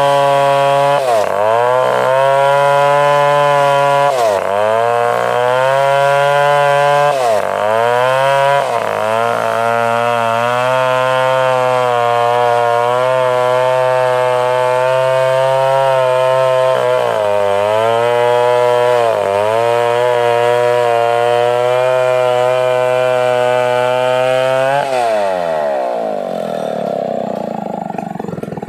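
Stihl 070 chainsaw's two-stroke engine running at high revs, its pitch dipping sharply and recovering several times, then dropping away toward idle near the end.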